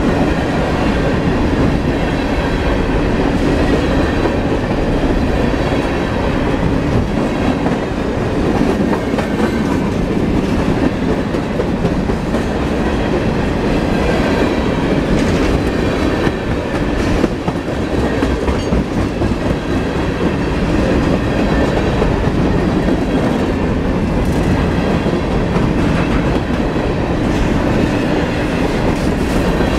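Freight cars rolling past close by: a steady, loud noise of steel wheels on the rails, with scattered clicks of wheels over rail joints.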